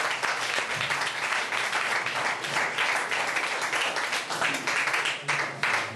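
Audience applauding: a steady round of many hands clapping that dies away near the end.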